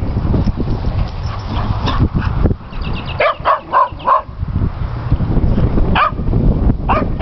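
Dogs barking in play: a quick run of about five short, high barks about three seconds in, one more about six seconds in and another near the end, over a low rumble.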